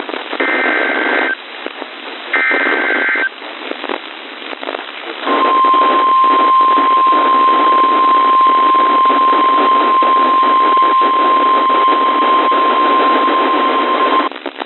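NOAA Weather Radio Emergency Alert System activation heard through a radio receiver with steady static hiss: two short bursts of SAME header data tones, about a second each, then a couple of seconds of static, then the steady 1050 Hz warning alarm tone held for about nine seconds before cutting off. The sequence signals that a weather warning is about to be broadcast.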